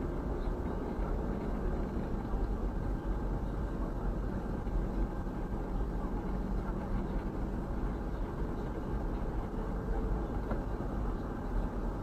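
Steady road and engine noise heard from inside a taxi's cabin while it drives along an expressway, an even rumble without sudden events.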